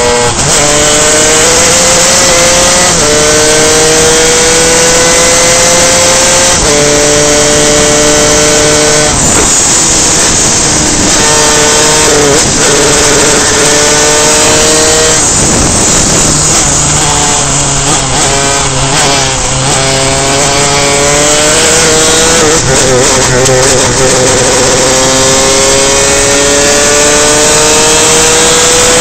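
Two-stroke superkart engine at racing speed, its pitch climbing through each gear and dropping back at the shifts, several times. Partway through it falls low for several seconds before winding up again in one long climb near the end.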